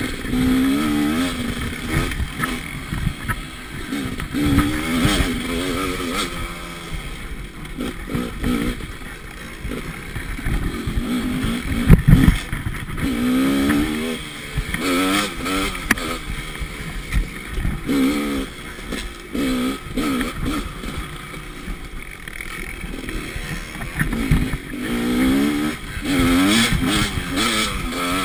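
Dirt bike engine revving up and down again and again under the throttle while riding a trail, with scattered knocks and a loud thump about twelve seconds in.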